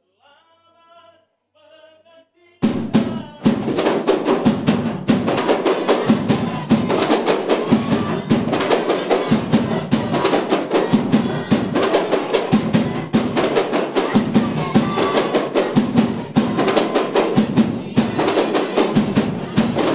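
Kompang ensemble of hand-held Malay frame drums, with a large barrel drum also struck, starting abruptly about two and a half seconds in and playing dense, fast, interlocking hand-beats. A faint voice comes before the drums start.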